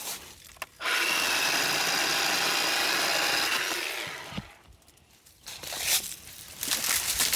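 Worx WG322 20V cordless electric chainsaw: its motor and chain start suddenly with a steady whine about a second in, run for about two and a half seconds, then spin down. Afterwards come scattered snaps and rustling of dry branches.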